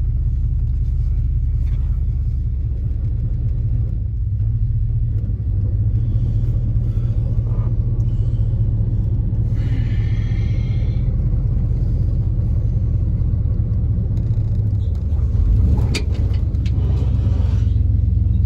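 Dump truck engine running steadily while the bed is raised to dump a load of firewood logs, getting louder about five seconds in. A brief high squeal comes about ten seconds in, and a sharp knock near the end, which the driver takes for the raised bed hitting a roof truss.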